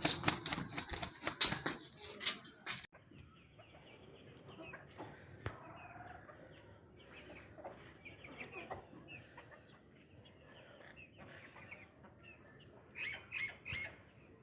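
Chickens: a burst of loud, rapid wing flapping for the first three seconds, then soft clucking, with three louder short clucks near the end.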